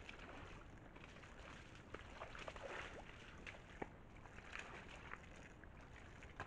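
Faint splashing and slurping of red deer drinking and stepping in a shallow muddy pool, in uneven clusters, with a few sharp clicks, the loudest just past the middle.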